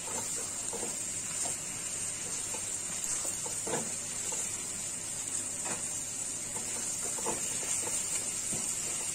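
Chicken pieces sizzling in hot oil and spice paste in a nonstick wok, turned with a wooden spatula that knocks and scrapes against the pan every second or two.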